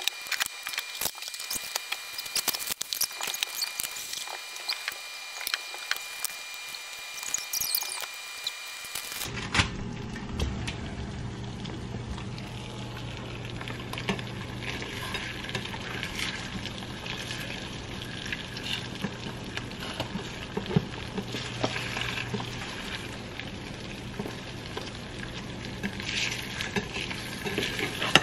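Eggs frying in a pan, sizzling with dense crackling and spitting. About nine seconds in, a low steady hum joins the sizzle.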